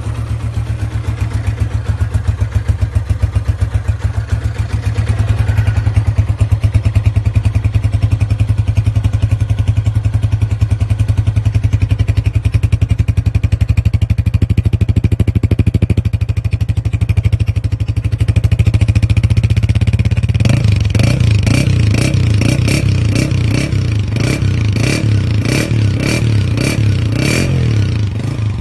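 Honda CG125's single-cylinder four-stroke engine running through an aftermarket KYH silencer, with a steady exhaust note. From about twenty seconds in, the exhaust turns rougher, with a run of sharp, uneven pops.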